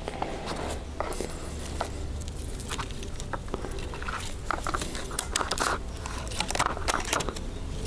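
Irregular clicks, snaps and rustling of hands working bamboo stakes in among the branches of a potted blueberry bush and tying the branches to them.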